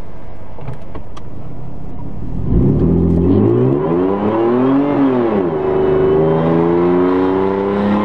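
Supercharged Toyota 1GR-FE 4.0-litre V6 accelerating at full throttle. It runs steadily for about two and a half seconds, then the revs climb, drop back at an automatic gearchange about five seconds in, and climb again.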